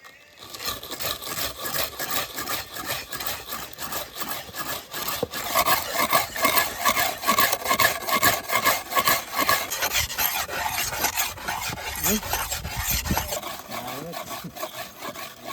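Rapid rhythmic rasping scrapes of a hand tool, several strokes a second, easing off a little near the end.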